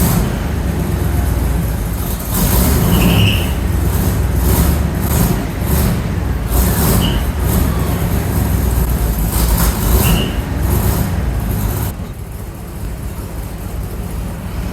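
Squarebody pickup truck's engine, just started cold, running unevenly and surging up and down through a freshly welded-on muffler. About twelve seconds in it settles to a quieter idle once it is warm enough to idle.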